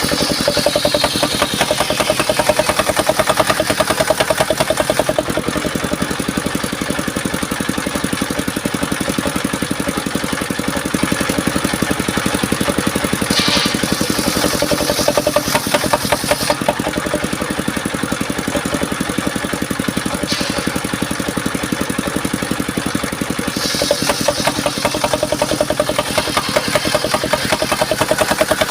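Engine-driven circular sawmill running steadily, its engine beating in rapid pulses, with a higher hiss that swells in the first few seconds and again near the end, as the blade cuts mahogany.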